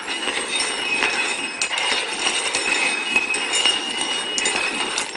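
Cups being slid and shuffled across a hard tabletop: a steady scraping with scattered clinks and knocks as they bump, part of a hide-the-treat shell game.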